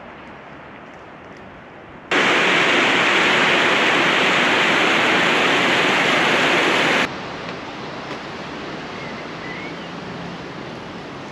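Loud, steady rush of running water that cuts in suddenly about two seconds in and stops just as suddenly about five seconds later, with quieter outdoor background hiss on either side.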